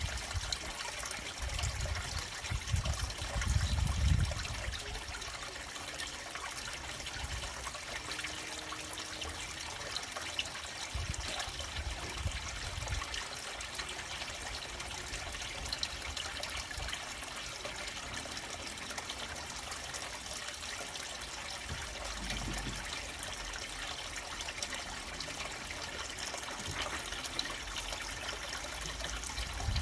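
Steady trickling and splashing of water running into a koi pond, with a few low rumbles, the loudest about four seconds in.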